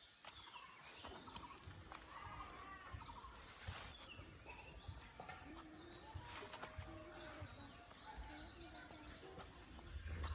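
Birds chirping and calling, faint, with some distant voices underneath. Music comes in near the end.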